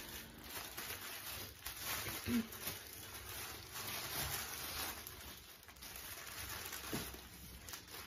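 Tissue paper rustling and crinkling as a wrapped bundle is pulled open by hand, in uneven handling noise.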